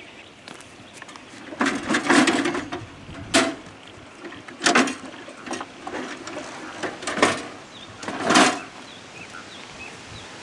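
Irregular knocks and short clatters from fittings on a slide-on camper being handled, about half a dozen spread over several seconds, with a longer rattle near the start and another near the end.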